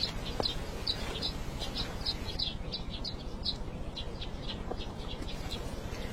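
A small bird chirping over and over, short high chirps about three a second that grow fainter after about three and a half seconds, over a steady low rushing noise.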